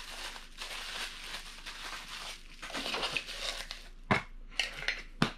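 Plastic packaging crinkling and rustling as a Funko Soda can is handled, with a couple of sharp taps about four and five seconds in.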